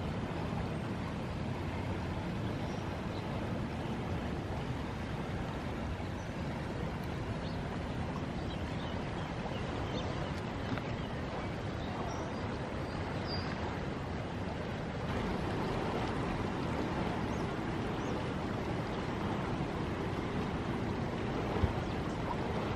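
Steady rushing of a swollen river in flood.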